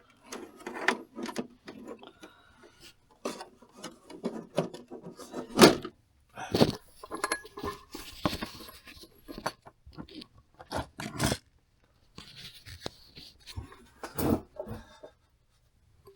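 Hard plastic RC crawler body being handled and fitted onto its chassis mounts: irregular rubbing, scraping and clicking of plastic on plastic, with a few sharper knocks and short pauses.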